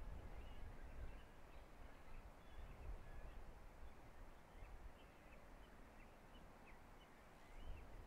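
Faint, distant birds chirping in short scattered calls over a low, uneven rumble of background noise.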